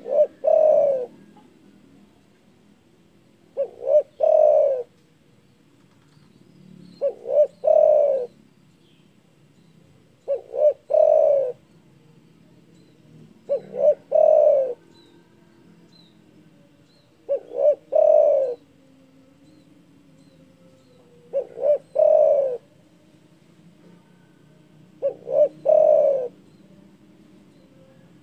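Spotted dove cooing its call over and over, eight phrases about every three and a half seconds. Each phrase is two short coos followed by a longer, louder coo. Faint high chirps of small birds come between the phrases.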